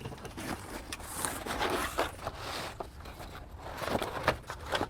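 Cardboard box being opened and unpacked: scraping and rustling of cardboard and packaging, with a few light knocks.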